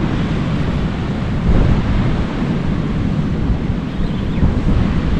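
Wind buffeting the microphone over the steady wash of ocean surf breaking on the shore.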